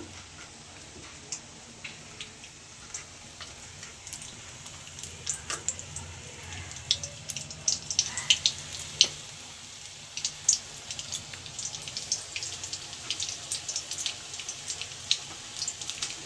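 Egg-and-flour-battered eggplant strips frying in hot oil: a steady sizzle with sharp crackles and pops, which come more often after a few seconds.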